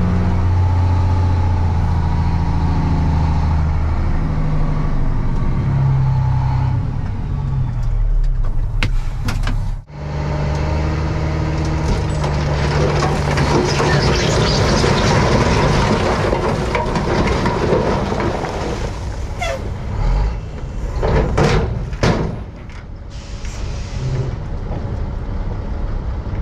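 Dump truck engine running for several seconds, then a long rattling rush of broken asphalt sliding out of the raised dump bed, followed by several sharp bangs near the end.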